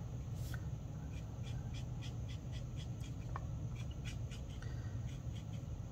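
Faint scratchy strokes of a Stampin' Blends alcohol marker colouring on paper, in quick short repeated strokes, over a steady low hum.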